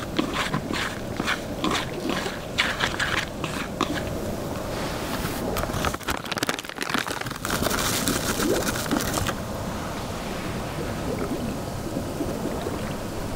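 Hands kneading and crumbling damp fishing groundbait in a bait bowl: a rapid run of grainy crunching and rustling strokes. A little past the middle comes a hiss of about a second and a half as something is poured into the bowl, followed by softer rubbing of the bait.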